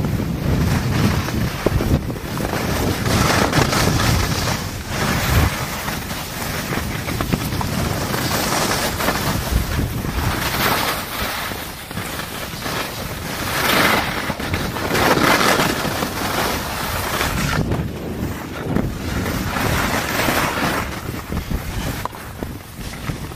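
Wind buffeting the microphone of a camera moving down a ski slope, mixed with the hiss of sliding over snow, swelling and fading in surges every few seconds.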